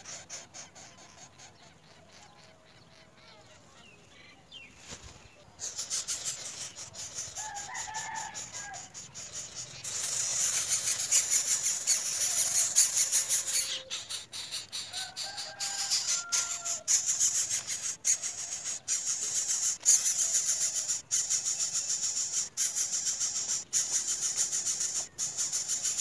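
Domestic chickens calling now and then in the distance, a few short clucks and crow-like calls. Under them runs a steady, finely pulsing high-pitched buzz that comes in about six seconds in and grows louder about ten seconds in.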